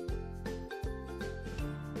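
Background music: a light tune of held pitched notes over a bass line, with a steady beat.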